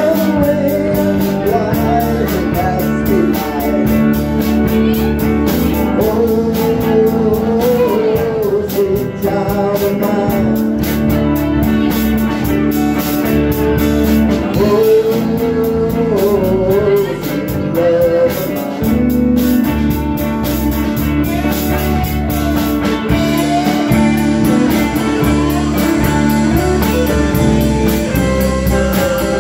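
Live rock band playing through a bar PA, with electric guitars over a drum kit and a melody line that slides up and down the whole time.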